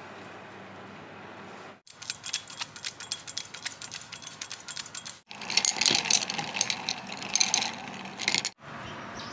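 A brass trigger mist sprayer spraying water, a quick run of fine clicks. Then, about five seconds in and loudest, ice cubes clink against a drinking glass as a glass straw stirs an iced milky drink.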